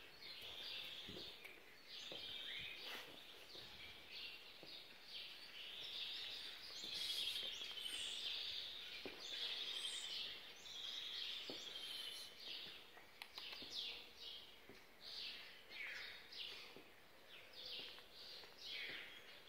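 Many small birds chirping and twittering together in a dense, continuous chorus of short high notes, some sweeping downward, busiest around the middle.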